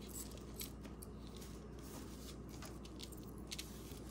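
Faint rustling and light clicks of jewelry and its packaging being handled, over a low steady hum.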